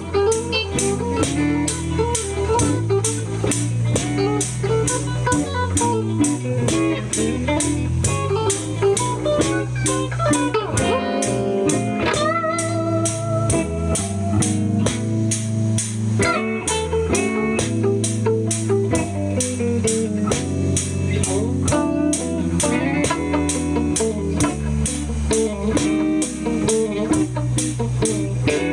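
Blues band playing an instrumental passage: an electric guitar lead with bent notes over a steady drum beat and bass line.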